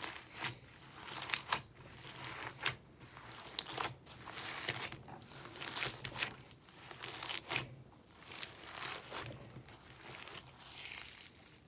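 Purple glitter slime mixed with foam beads being kneaded and squeezed by hand, giving irregular crunchy crackling and crinkling as the beads are worked in.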